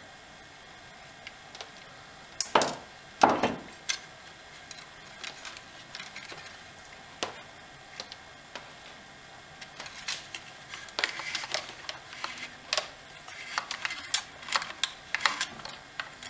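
Hands working a new fuel line through the plastic housing of a Poulan chainsaw: small clicks, taps and rattles of line, wire and plastic, with two louder knocks about two and a half and three and a half seconds in. The clicking grows busier in the second half.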